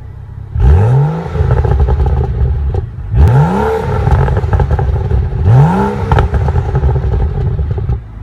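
BMW F30's engine revved three times, each rev rising quickly in pitch before settling back, with a steady idle rumble in between. The sound drops off near the end.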